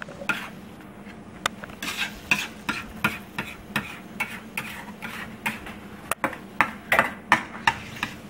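Metal fork scraping and stirring scrambled egg yolks in a stainless steel frying pan, in quick repeated strokes of about two or three a second, loudest about seven seconds in.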